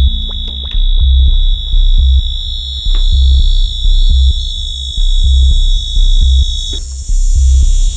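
Electronic music: a deep bass pulse about once a second under a held high-pitched synthesizer tone, which stops shortly before the end.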